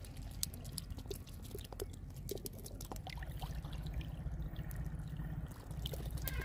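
Shallow water trickling and dripping over a ramp of bamboo slats in a fish trap, with many small sharp splashes and clicks as fish flop on the wet bamboo, over a steady low rumble.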